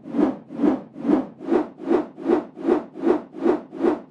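Sound effect of spinning rotor blades whooshing in an even rhythm, about two and a half swells a second, each rising and fading.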